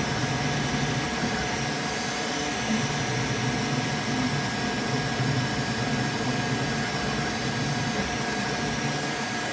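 Creality K1C 3D printer printing at high speed, its motors and fans making a steady mechanical whir with a faint constant whine in it. The enclosure door is open, which makes it louder than with the door closed.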